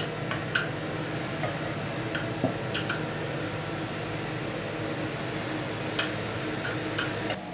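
A metal spoon presses and scrapes grated coconut into a greased metal tube pan, with a few light clicks of spoon against pan. A steady background hum runs underneath.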